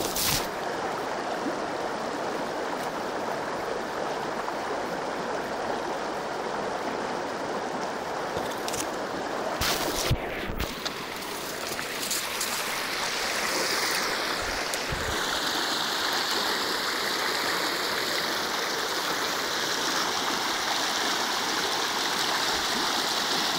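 Steady rushing of a flowing river, growing brighter and hissier about two-thirds of the way through, with a couple of short knocks near the middle.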